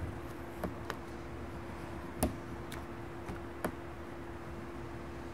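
About six scattered light ticks of an ink pen tapping and dabbing on a sketch pad while filling in black. A steady low hum sounds throughout.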